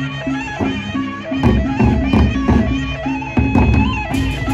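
Sasak gendang beleq ensemble playing: large barrel drums beaten in a steady rhythm with clashing hand cymbals, under a wavering melody line.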